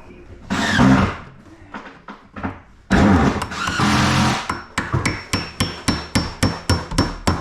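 Hammer blows in a quick, even run of about three strikes a second through the second half, each with a faint metallic ring. Before them come two louder noisy bursts about a second long.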